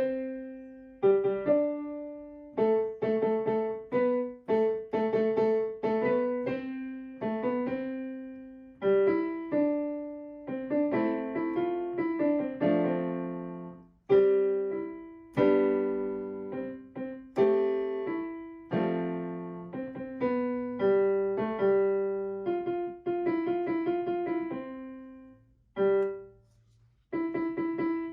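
Background piano music: a gentle melody of struck notes and chords, each fading away, with a brief pause near the end.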